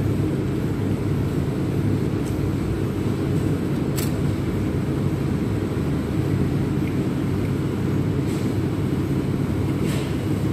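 Steady low background rumble, with a couple of faint clicks about four seconds in and near the end.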